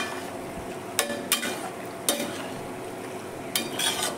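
A metal slotted spatula stirs and tosses macaroni pasta in a steel kadhai, scraping and clinking against the pan about once a second. A light sizzle of the pasta frying runs underneath.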